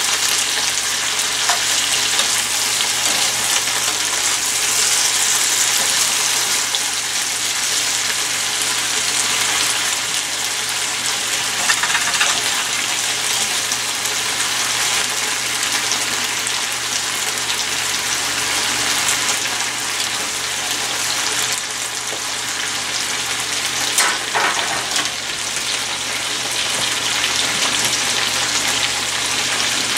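Green vegetable strips and sliced onion frying in bacon grease in a cast-iron skillet, making a steady sizzle. A metal spatula stirs and scrapes the pan now and then, most clearly twice, around the middle and again later.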